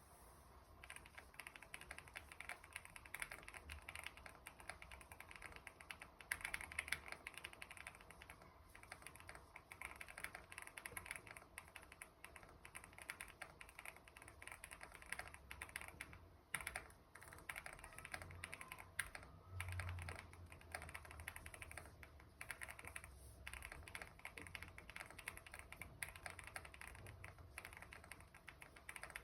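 Fast, continuous typing on a GMK67 mechanical keyboard with lubed Akko Cream Yellow V3 Pro linear switches and PBT keycaps, with a couple of brief pauses around the middle.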